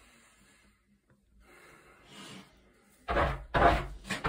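A person taking slow deep breaths, two soft breaths about two seconds apart, to calm down before a septum piercing. About three seconds in, louder rustling and rubbing right against the microphone.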